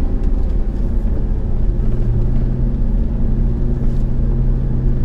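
Steady low engine and drivetrain drone from inside the cab of a Ram Power Wagon pickup climbing a dirt trail, with tyre and road rumble.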